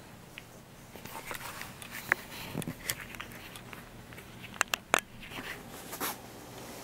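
A teething baby chewing and mouthing a wet cloth hanky: scattered soft wet smacks and sharp clicks, a handful of them, with small rustles between.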